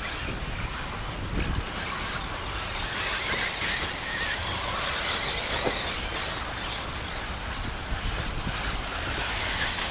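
Electric 1/8-scale off-road RC buggies racing on a dirt track, a steady noise under wind on the microphone.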